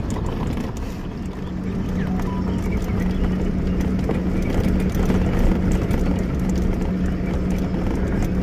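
Safari vehicle driving on a rough dirt track: low rumble of the engine and tyres on gravel, with a steady engine hum setting in about a second in and scattered small rattles and knocks.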